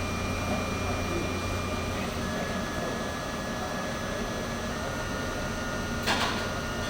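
Tormach CNC lathe running a cut: a low hum under a thin steady whine that steps down in pitch twice, with a single sharp click near the end.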